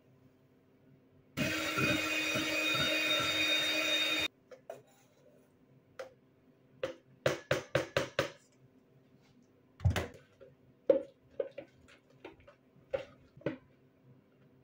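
A small electric kitchen appliance motor, blender-like, runs loudly for about three seconds and cuts off abruptly. This is followed by scattered sharp knocks and taps, including a quick run of about five about seven seconds in.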